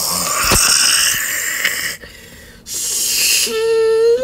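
Mouth-made sound effects: a long breathy hiss, a pause, a shorter hiss, then a short held vocal tone that rises slightly near the end.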